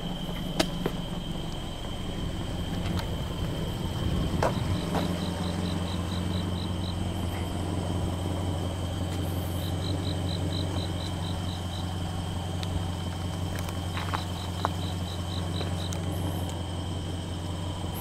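Insects chirping in repeated short trains of evenly spaced high pulses, about eight a second, starting about four seconds in. Underneath there is a steady low hum and a thin continuous high whine, with a few light clicks.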